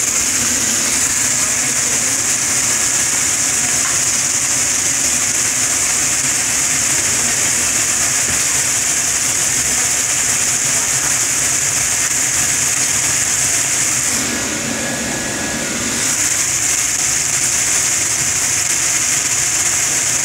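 Sausage-stuffed squid deep-frying in hot oil in a fryer basket: a steady sizzling hiss that briefly drops in level about two-thirds of the way through.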